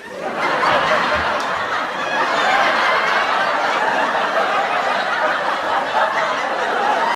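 Audience laughter sound effect: a crowd laughing together, starting abruptly and cutting off sharply after about seven seconds.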